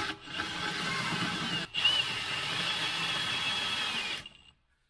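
Milwaukee Fuel cordless drill running under load, drilling through a metal plate held in a vise. It runs steadily with a whine, stops briefly at about a second and a half, starts again, and stops about four seconds in.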